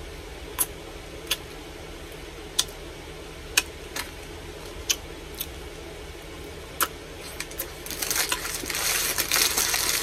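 A person eating close to the microphone: scattered sharp mouth clicks over a steady low hum, then from about eight seconds in a dense run of crackling and crinkling.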